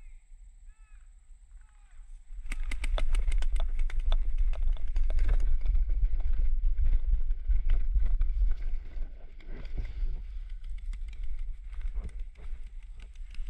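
A few faint bird chirps, then about two seconds in, running footsteps with gear rattling and thudding close to a body-worn camera, over wind rumbling on its microphone. The knocking is dense at first and thins out later.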